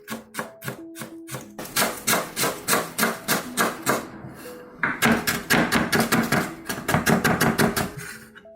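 Background music under a fast, even run of sharp knocks, like a knife chopping on a cutting board, about four or five strokes a second, with a short pause midway.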